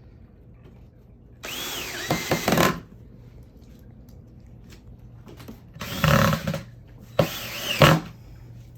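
Power drill driving screws into the wooden drawer panels, in three short runs whose motor pitch rises and falls with the trigger; the first run is the longest, and the last two come close together near the end.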